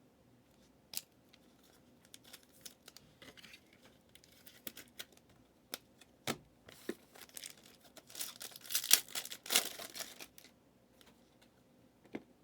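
A trading card pack wrapper being torn open and crinkled, loudest a little after the middle, with scattered sharp clicks and taps from cards being handled.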